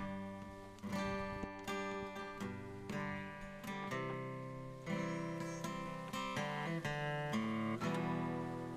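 Background music: an acoustic guitar strumming chords, a new strum about once a second.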